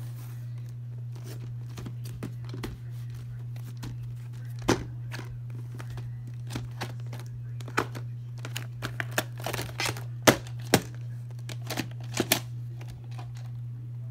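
A plastic VHS clamshell case being handled and adjusted on carpet: a string of irregular clicks, taps and rustles, loudest about ten and twelve seconds in, over a steady low hum.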